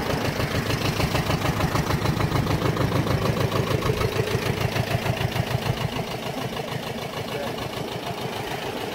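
Two-cylinder engine of a Valpadana 20.26 4RM motoagricola idling steadily with an even, rapid pulse. It is a little quieter from about six seconds in.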